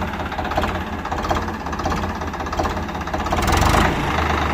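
Ford 3600 tractor's diesel engine running steadily with an even knocking beat, with a brief surge of noise about three and a half seconds in, after which it runs a little louder.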